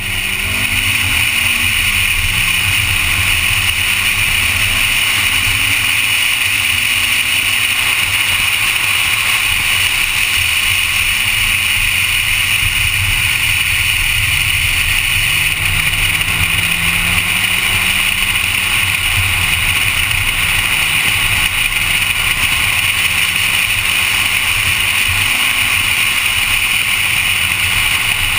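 Honda Civic driven at speed on track laps: its engine runs with a pitch that rises and falls several times, under a loud, steady rush of wind and road noise.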